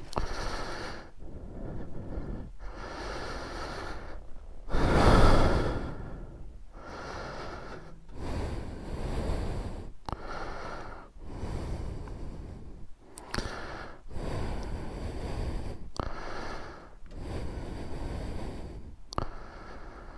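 A person's breathing close to the microphone, a string of noisy puffs one to two seconds long with short pauses between them, the loudest about five seconds in.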